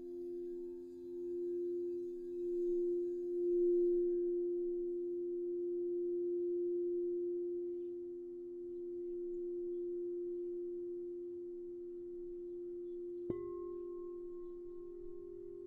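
Crystal singing bowls sustaining two steady low tones that swell and ebb in slow waves as the rim is played. About thirteen seconds in a sharp strike adds a brighter, higher ringing tone over them.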